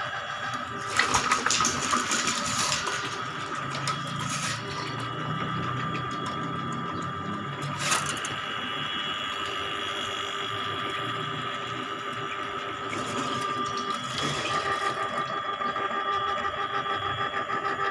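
Electric drain-cleaning (rooter) machine running steadily, turning its cable to clear a clogged drain inspection chamber, with louder clattering about a second in and a sharp knock about 8 s in.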